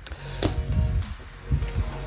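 Background music with a low, steady bass line and a couple of short knocks.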